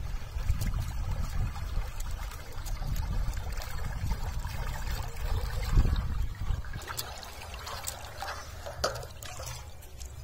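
Water splashing and trickling as a satellite-dish fishing trap is dragged by its rope through shallow river water to the bank, over a steady low rumble. Near the end the dish is lifted out and water runs and drips off it.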